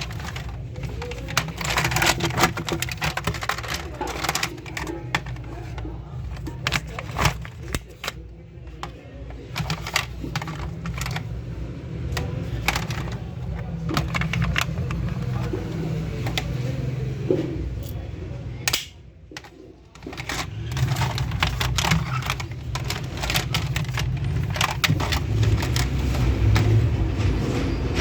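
Toy gun being handled and taken apart: many irregular clicks and rattles of small plastic and metal parts, over a steady low hum.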